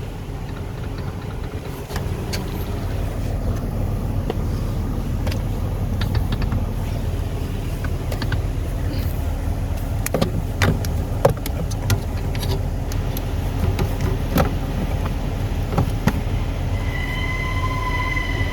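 Car engine idling with scattered sharp knocks, the power-steering knock noise being diagnosed. A steady high whine starts near the end.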